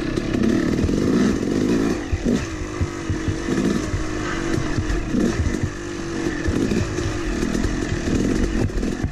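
Yamaha YZ250 two-stroke dirt bike engine running under way, its pitch rising and falling as the throttle is opened and rolled off over and over.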